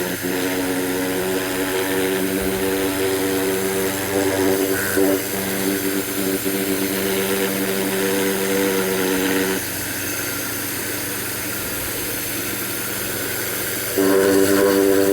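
Ryobi 1600 PSI electric pressure washer running, its motor and pump giving a steady airplane-like buzz over the hiss of the spray. The buzz stops about two-thirds of the way through and starts again shortly before the end.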